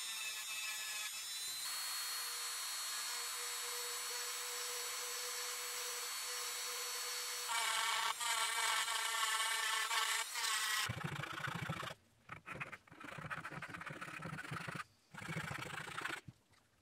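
A handheld rotary tool with a small burr runs with a steady high whine as it grinds inside a white oak saxophone mouthpiece, shaping the baffle. The whine grows louder for a few seconds past the middle. About eleven seconds in the tool stops, and a hand file rasps across the wood in a run of strokes with short pauses.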